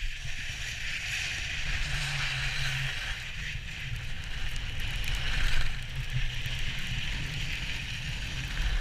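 Skis sliding over packed snow on a downhill run, a steady hiss, with wind rumbling on the microphone.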